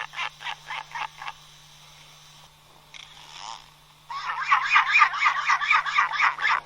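Albatross calling in rapid series of short, pulsed notes: a quick run that stops about a second in, a brief call near three seconds, then a louder, faster run of about five or six notes a second from about four seconds on.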